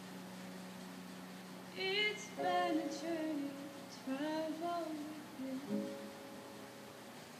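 A woman singing a slow melody with vibrato to her own grand piano accompaniment. A held piano chord sounds alone at first; her voice enters about two seconds in, in short phrases, and a fresh chord is played near the end.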